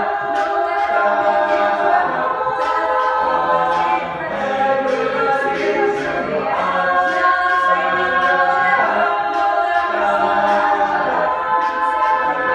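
Mixed-voice a cappella group singing, a woman's lead voice over close-harmony backing vocals, with a steady beat of short clicks about twice a second.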